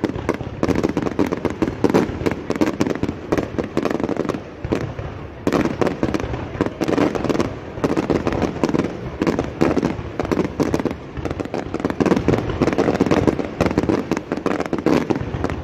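Fireworks display: a rapid, unbroken barrage of bangs and crackling from bursting aerial fireworks.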